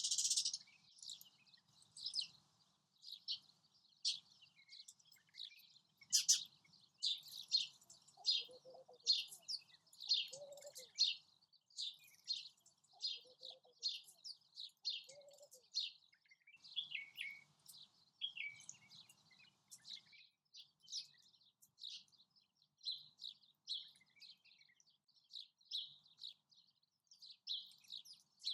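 Semi-collared flycatcher calling: short, high call notes repeated steadily, about one or two a second.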